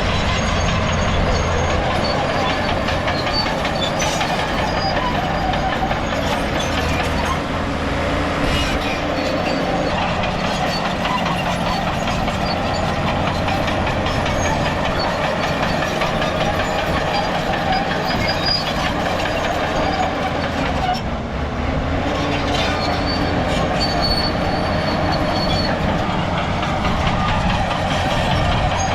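A crawler bulldozer at work: its diesel engine runs steadily while the steel tracks clank and squeal.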